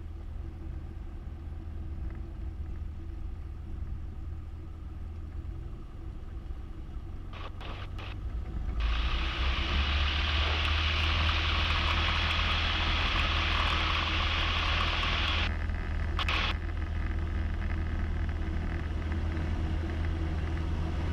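Single-engine light aircraft's piston engine heard inside the cockpit, running low, then brought up to full power about nine seconds in for a soft-field takeoff roll. A strong hiss rides over the engine from then until about fifteen seconds in.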